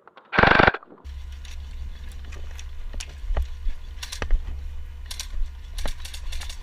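Airsoft gunfire: one loud, short burst about half a second in, then scattered sharp cracks of shots across the field over a steady low rumble on the microphone.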